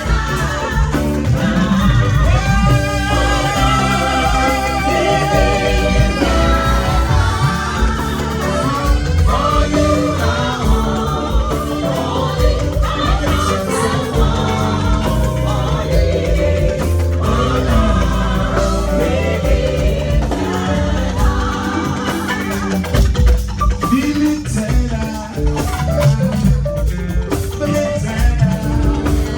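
Gospel music with singing over a heavy, steady bass line; a voice holds wavering notes a few seconds in.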